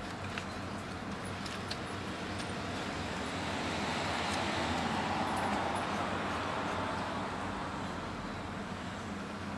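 Steady outdoor background noise that swells over a few seconds and fades again, like a vehicle passing by, with a few faint ticks.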